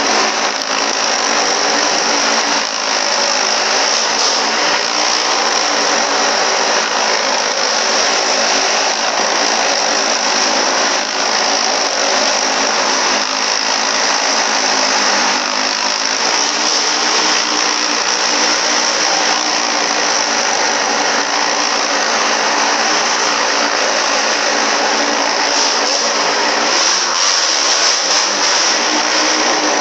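Motorcycle engines running hard and steady as they circle the wall of a wall-of-death barrel, a continuous loud engine drone with no break.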